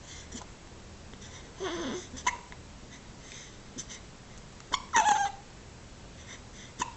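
Hiccups: several short, sudden hiccups spaced a second or two apart, some with a brief squeaky falling tone, the loudest about five seconds in.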